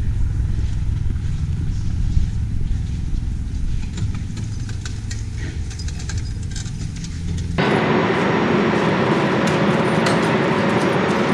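Steady low mechanical rumble with a few faint ticks. About seven and a half seconds in, it switches abruptly to a louder, even hissing roar carrying a faint steady whine, like engines or ground machinery running on an air base.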